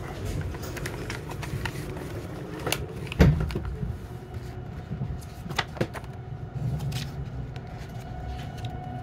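Inside a JR West 681 series electric motor car pulling away from a station: a low steady rumble with several knocks and clicks, the loudest about three seconds in. A steady tone from the traction equipment comes in near the end as the train moves off.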